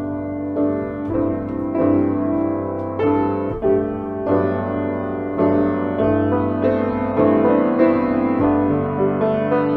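Solo piano music, notes and chords struck every half second or so and left to ring.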